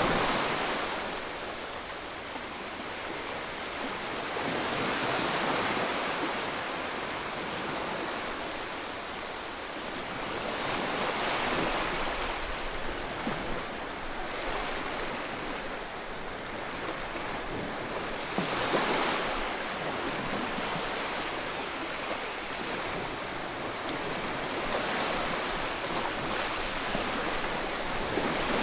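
Ocean waves washing onto the shore, a continuous hiss of surf that swells every few seconds as each wave breaks.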